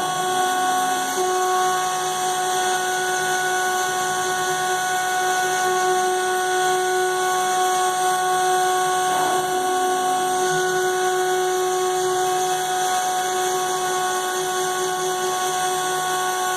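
CNC router spindle running at high speed with a steady, high-pitched whine, with a couple of brief lower tones partway through.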